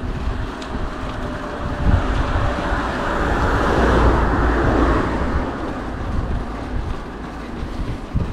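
Mountain bike rolling over rough ground, its low rumble and knocks mixed with wind buffeting the microphone; the noise swells about three to five seconds in.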